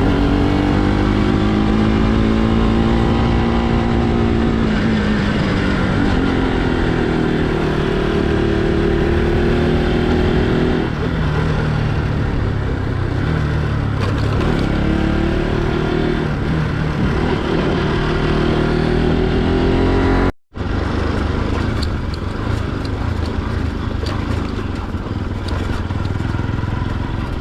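Motorcycle engine running under way, its pitch rising and falling as the throttle opens and closes. About two-thirds of the way through the sound cuts out for a split second, then the engine goes on less evenly.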